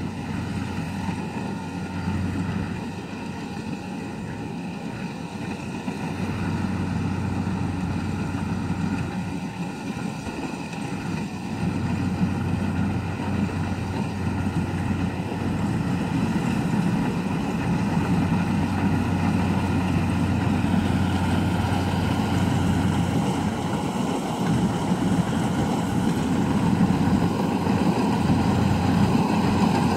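Kubota DC-70 rice combine harvester running steadily as it cuts, its diesel engine and threshing gear humming and growing gradually louder as it comes closer.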